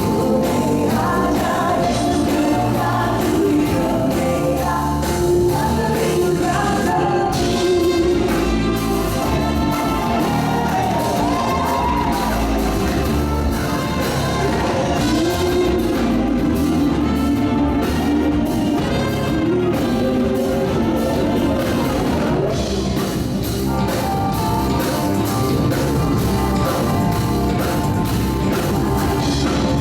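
Gospel band playing a hymn arrangement with voices singing the melody over a full accompaniment with strong bass, steady and loud throughout.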